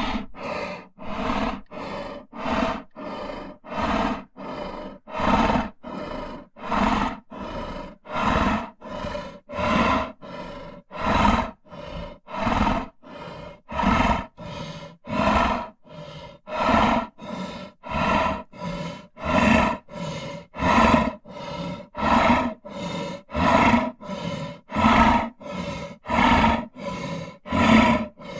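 Lion growling in short, rough pulses, about three every two seconds, keeping an even rhythm like growled breaths.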